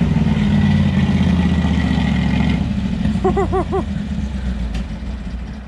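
A vehicle engine held at high revs, revved to clear it, then the revs ease off about two and a half seconds in. A short chirping call repeats four times near the middle.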